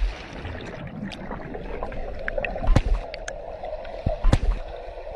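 Underwater sound picked up by a handheld camera below the surface: a steady muffled rushing and bubbling of water, broken by several sharp clicks and knocks, the loudest near the middle and about four seconds in.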